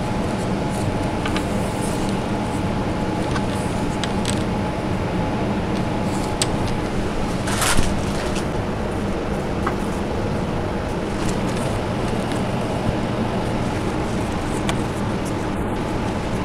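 Steady background hum of room noise, with faint rustles and light clicks from hands tying fabric ribbons on a wooden doll crib; one short, louder brush of fabric about eight seconds in.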